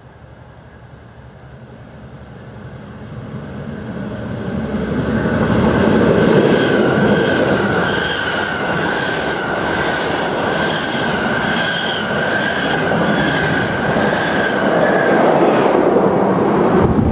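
A train approaching and running through a station, growing louder over the first six seconds and then staying loud, with a steady high whine or squeal from the wheels and running gear that fades out near the end.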